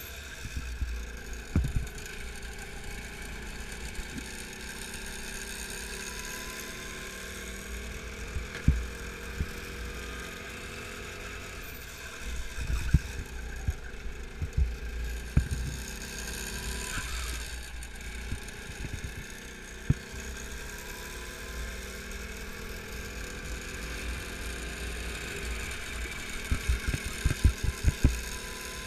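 Go-kart engine running while lapping, its pitch rising and falling as the driver accelerates and brakes, heard from on board under a heavy low rumble of wind on the microphone. Sharp low thumps come now and then, most thickly near the end.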